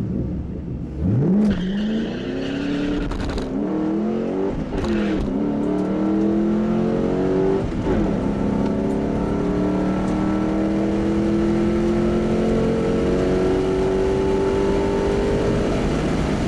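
2007 Shelby GT's V8 heard from inside the car on a quarter-mile drag run: it launches about a second in and revs up through the gears, the pitch dropping at each shift over the first eight seconds, then pulls steadily in top gear with the pitch slowly rising.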